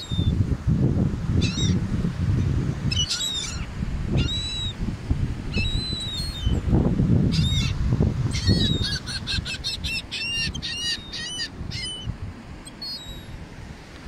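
Gulls calling: scattered short, high calls, then a quick run of calls from about 8.5 to 11.5 seconds in. Under them is a loud, gusty low rumble of wind on the microphone and breaking surf.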